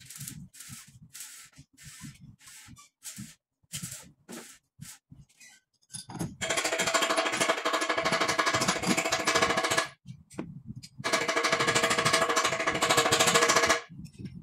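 Scattered light clicks and knocks, then a pneumatic impact wrench running in two bursts of rapid hammering with a whine, the first starting about six seconds in and each lasting about three seconds.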